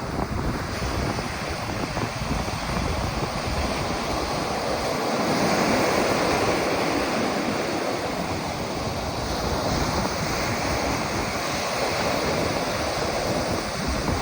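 Ocean surf breaking and washing up the beach in a continuous roar, swelling louder for a few seconds about five seconds in as a larger wave comes through.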